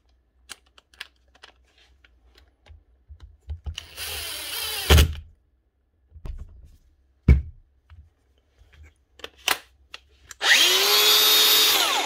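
Makita DGA463 cordless angle grinder being test-run after dust was cleared from its sticking slide switch. The switch clicks and is handled several times. A short burst of the motor around four seconds in stops with a thunk, and there is a sharp knock a couple of seconds later. Near the end the grinder runs steadily at full speed for about a second and a half, with the switch now engaging.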